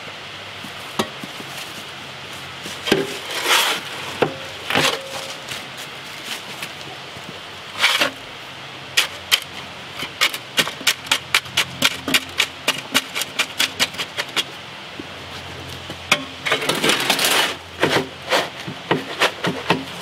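Shovel scraping and knocking through wet concrete in a wheelbarrow and into a wooden form. Scattered scrapes and thuds, then a run of quick knocks, about three a second, in the middle, and a longer scrape near the end.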